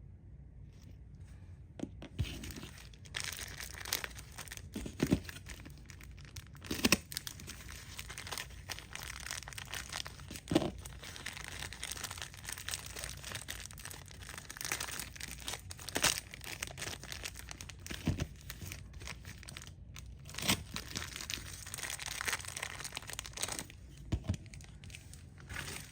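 Packaging being torn open and crinkled by hand: a long stretch of irregular crackling and rustling with scattered sharp snaps, starting about two seconds in.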